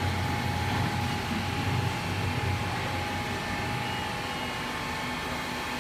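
Six-nozzle jerrycan filling machine running with a steady mechanical hum and a faint steady whine over it.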